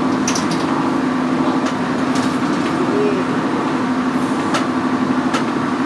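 Steady drone inside a vehicle's cabin, an engine hum with a constant low tone under road noise, with a few short rattling clicks.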